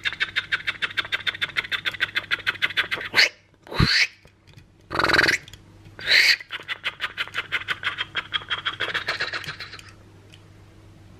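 Toy mini car pushed along a tabletop, giving a rapid, even clicking of about nine clicks a second that stops shortly before the end. About three seconds in the clicking breaks off for four short, loud voice-like noises, then starts again.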